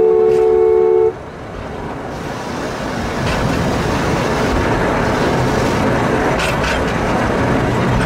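Forest railway locomotive's horn sounding a two-note blast that cuts off about a second in, then the running noise of the narrow-gauge train on the track grows louder and carries on steadily, with a few faint clicks.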